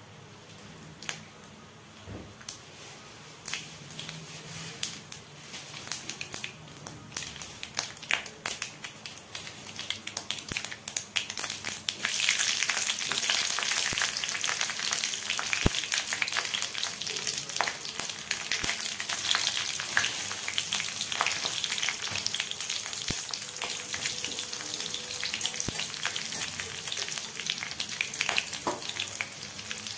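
Hot oil in an aluminium kadai sizzling and crackling. At first there are only sparse pops as the oil heats; about twelve seconds in, ingredients go into the oil and it breaks into a loud, steady sizzle with frequent pops.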